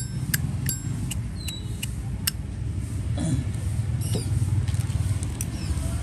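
Zippo lighter's metal case clinking and clicking as it is handled, several sharp clicks with a short ring in the first two seconds. Under it runs a steady low rumble, like street traffic, that swells after about four seconds.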